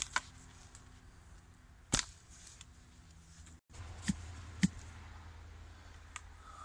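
Manual clamshell post hole digger working into soil: a handful of sharp knocks at irregular intervals as the blades are driven into the ground and clank shut on the dirt.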